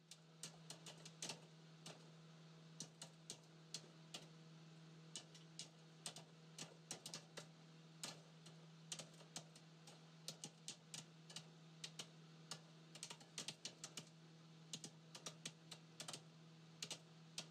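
Faint, irregular clicking, several light clicks a second in quick clusters like keys being tapped, over a steady low electrical hum.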